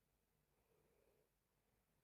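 Near silence, with one very faint breath from a sleeping woman a little over half a second in.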